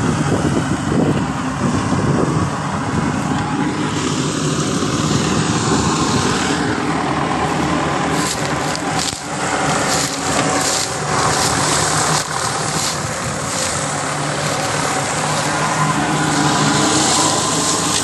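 Tractor engine running steadily under load while its rear-mounted mulcher chops and shreds dry sugarcane trash, a dense crunching rattle over the engine note, with sharper crackles from about halfway on.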